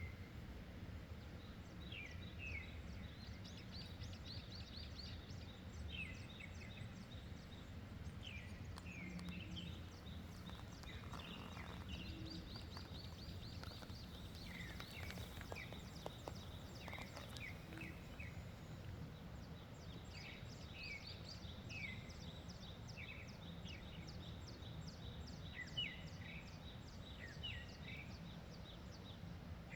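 Several birds chirping and trilling, short quick notes and rapid trills coming and going throughout, over a faint steady low rumble of wind.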